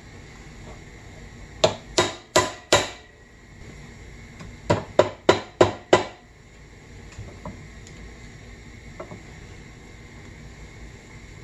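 Hammer striking a copper ring terminal on a wire, laid on the anvil of a steel bench vise, each blow ringing briefly. Four quick blows, a pause of about two seconds, then five more.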